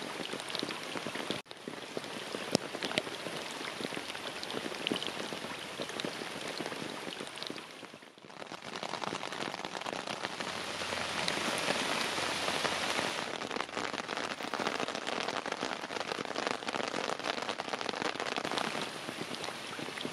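Steady rain pattering on a tent fly and wet ground, with many separate drops heard. It drops away briefly twice, about a second and a half in and about eight seconds in.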